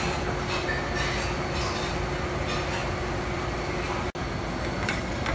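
Steady rushing noise of commercial kitchen equipment around a salamander broiler, with a faint steady hum underneath. It breaks off for an instant about four seconds in.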